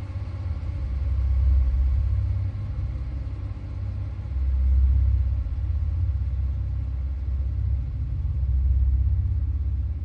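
A deep, low rumbling drone that swells and fades every few seconds, a dark ambient background bed.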